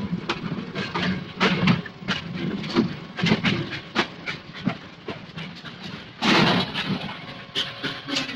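Railway freight yard sound effects: irregular clanks and knocks of freight cars, with a short loud hiss of steam about six seconds in.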